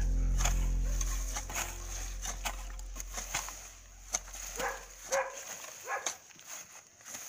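Hoes chopping into grass and soil in short irregular strikes, about two a second. A low steady hum fades out over the first five seconds.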